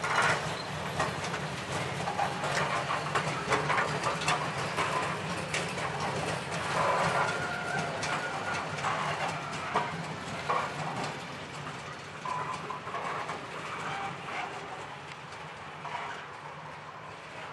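Freight train of covered cement tank wagons rolling past. The wheels clatter over rail joints, with short squeaks and creaks from the wagons, and the sound fades over the last few seconds as the train draws away.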